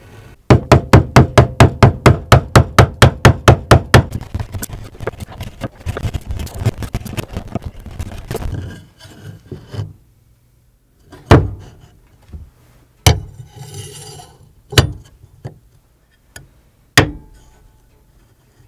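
A hand tool scraping along a wooden board in fast, even strokes, about six a second, that weaken and turn ragged after a few seconds. Then come four single sharp knocks of wooden pieces set down on a workbench, with a short scrape between two of them.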